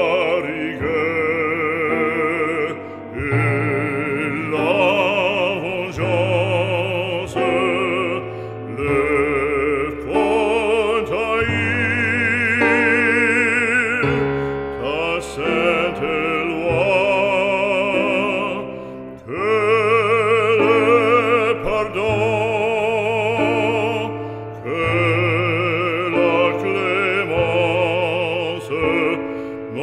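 Background music: an operatic voice singing long held notes with a wide vibrato over a steady instrumental accompaniment, phrase after phrase with short breaks between them.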